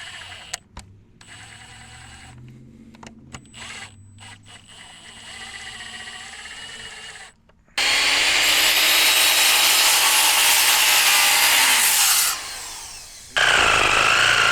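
Power saw with a dull blade cutting through a wooden form board. After some light knocks and clicks it runs loud and steady for about four seconds, winds down with a falling pitch, then starts cutting again near the end with a wavering whine.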